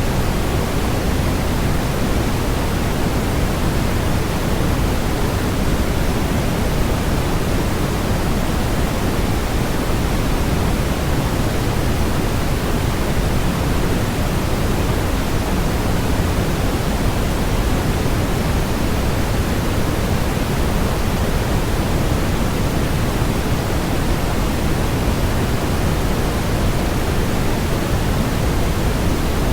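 Steady synthetic white noise, an even hiss with no changes. Its weight sits toward the low end, closer to pink noise.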